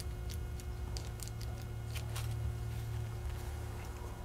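Faint, light crinkling and small ticks of a paper-thin phyllo dough sheet being peeled off the stack and lifted by hand, over a steady low hum.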